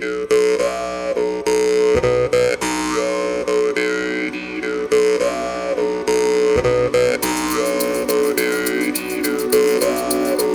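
Jew's harp loop: a steady twanging drone whose overtones sweep up and down in a repeating rhythmic pattern as the mouth shape changes. About seven seconds in, a fast ticking layer joins in the high range.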